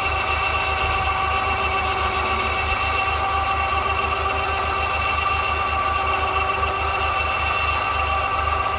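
Small 1.5-ton electric winch running steadily: a constant whine from its motor and gearing, with a low, even pulsing beneath it.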